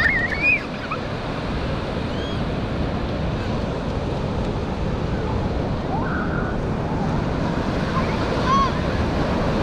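Ocean surf washing steadily on the shore, with wind buffeting the microphone. A brief high wavering call stands out about half a second in, and a few short high calls come later, near the end.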